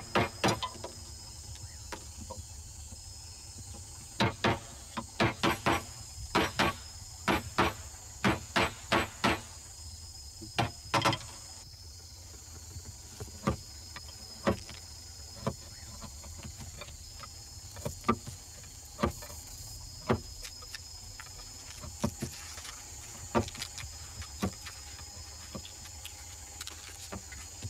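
Sharp clicks and taps of small lead bullet slugs being handled and set down on a mat. They come in quick runs in the first half and more sparsely later, over a steady faint high-pitched hiss.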